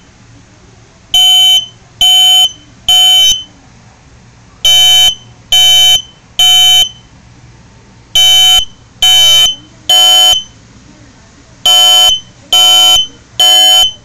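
Smoke detector set off with its test button, sounding loud, high-pitched beeps in groups of three with a pause between groups: the temporal-three evacuation alarm pattern, four groups in all.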